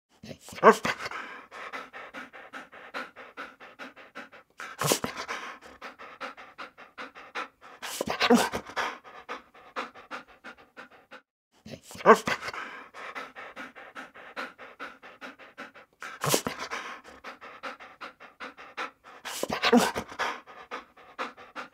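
A dog barking six times, about every four seconds. Each bark is followed by a few seconds of rapid, rhythmic panting.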